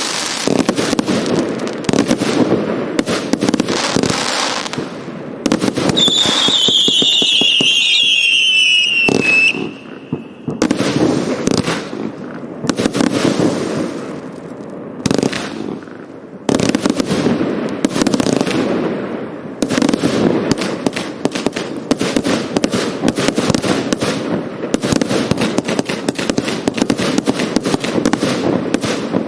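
A Hallmark Fireworks "Dreadnought" consumer firework cake firing a sustained barrage of shots and crackling breaks. About six seconds in, a whistle slides down in pitch for roughly three seconds.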